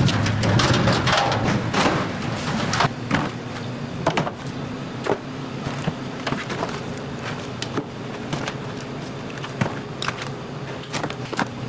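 Raw crab shells clicking and clattering as gloved hands sort the crabs in plastic tubs and a basket, over a steady low machine hum.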